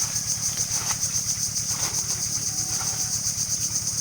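A small engine running steadily with a fast, even beat, and a high steady drone above it.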